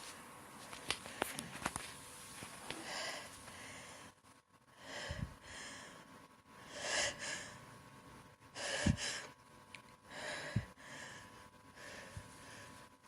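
A person's short, quiet gasping breaths and sniffs, about six of them, one every couple of seconds, as a sneeze builds up; a few faint clicks near the start.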